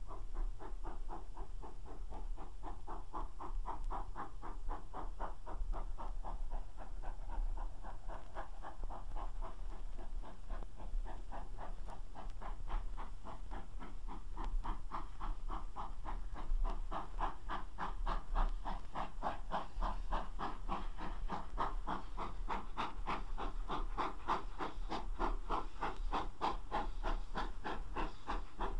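GWR 'Castle' class 4-6-0 steam locomotive No. 5005 Manorbier Castle working slowly and hard with a heavy train, giving a steady rapid exhaust beat that grows louder towards the end as it draws nearer.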